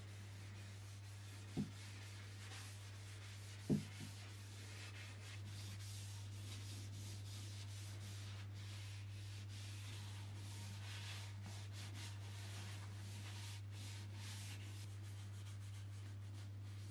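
Paper towel rubbing linseed oil into a wooden axe handle: soft, repeated wiping strokes. Two light knocks come in the first four seconds, over a steady low hum.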